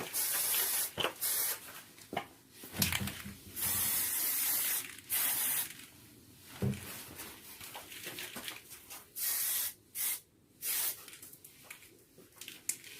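Aerosol spray can sprayed in repeated short bursts, some about a second long, with light clicks and knocks between them.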